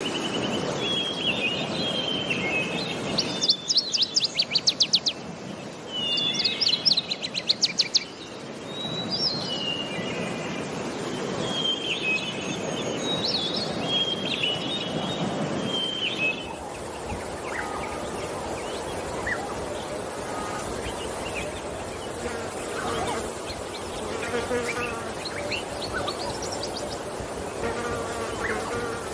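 Several wild birds calling over a steady noisy background: warbling phrases, then two loud rapid trills a few seconds in. About halfway through the soundscape changes to softer, lower chirps and calls.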